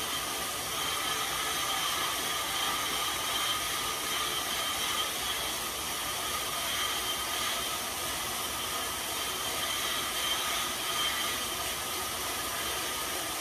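Cervelo road bike's tyre spinning fast on InsideRide rollers under a hard effort: a steady whir with a faint high whine.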